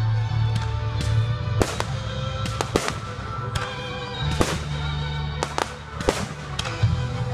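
Aerial fireworks shells bursting: a string of about a dozen sharp bangs and crackles, over music with steady sustained notes and a strong bass.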